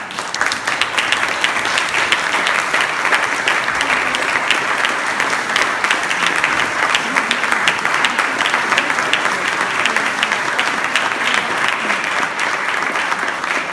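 Audience applauding steadily, a dense patter of many hands clapping, as performers walk on stage.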